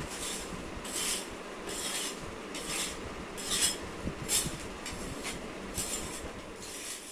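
Hand paint scraper scraping flaking paint and loose plaster off a wall in repeated strokes, about one or two a second.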